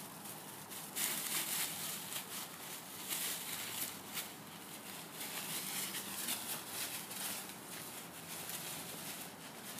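Dry fallen leaves rustling and crackling under golden retriever puppies' paws as they scamper and dig through a leaf pile, in irregular spurts.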